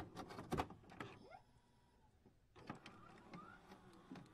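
Intro sound effects for a glitchy loading animation: scattered sharp clicks and crackles with a few short rising tones, and a brief near-silent gap in the middle.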